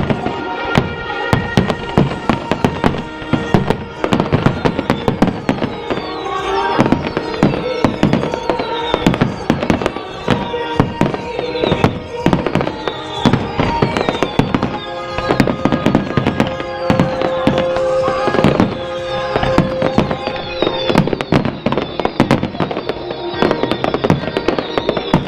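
Fireworks bursting in rapid, continuous volleys of bangs and crackles, over music playing.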